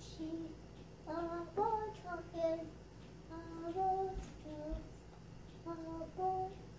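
A young child singing a little wordless tune, short held notes grouped in brief phrases with pauses between them.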